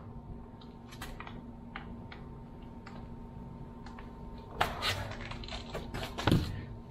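Scattered clicks and light knocks of a heavy lead-acid golf cart battery being lifted by its strap and carried across a concrete floor, with a cluster of rattling clicks about four and a half seconds in and a heavier dull thump just after six seconds. A steady low hum runs underneath.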